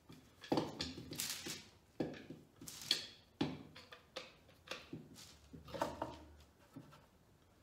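Bar clamps being fitted and tightened on a glued-up walnut box: a string of sharp clacks and knocks as the metal clamp parts strike the wood, with brief scraping between them.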